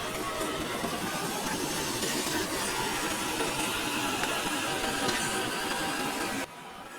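Electric motor and gearbox of an FMS FJ40 RC crawler whirring steadily over a hiss, cutting off suddenly about six and a half seconds in.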